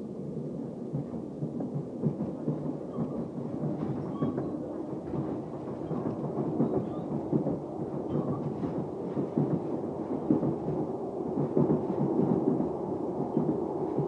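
Steady rumble of a passenger train running at speed, heard from inside the carriage, with irregular rattles and jolts from the running gear on the track.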